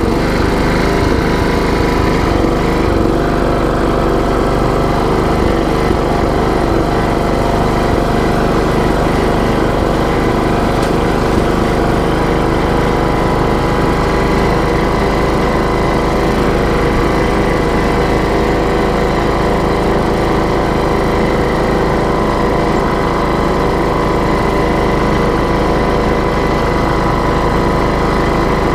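TroyBilt riding lawn mower engine running steadily as the mower is driven across the grass.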